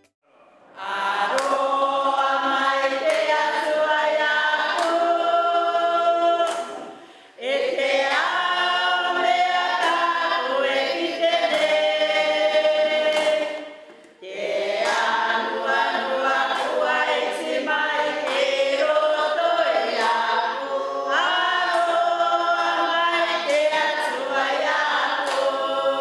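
A women's choir singing unaccompanied, in phrases with brief breaks about 7 and 14 seconds in.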